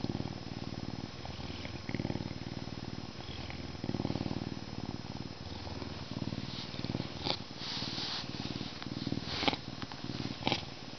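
Canada lynx purring a deep, rumbling purr that swells and eases in waves while its head is rubbed. In the second half, short bursts of fur rustling under the rubbing hand are the loudest sounds.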